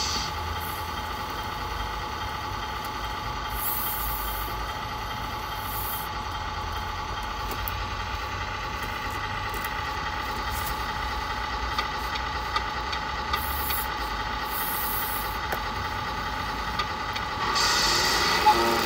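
Simulated diesel truck engine idling steadily from a radio-controlled model truck's sound unit, with short air-brake hisses a few times. It grows louder near the end.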